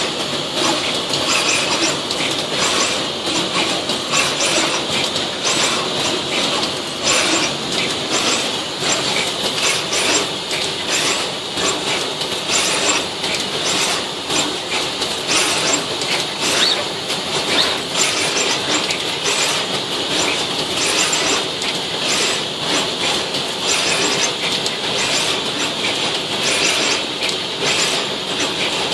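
Automated lens-assembly inspection machine running: a steady hiss with rapid, irregular small clicks and clatter from its moving mechanisms.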